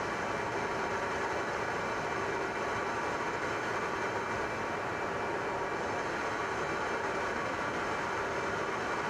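Steady aircraft engine drone: an even rushing noise with several steady high tones over it, unchanging throughout.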